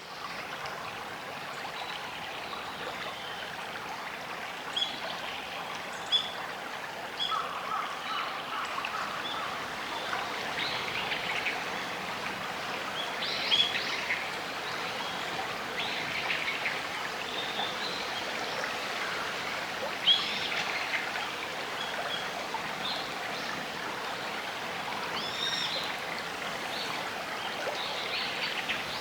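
Shallow river babbling steadily, with short bird chirps scattered on top, a few sharper ones standing out.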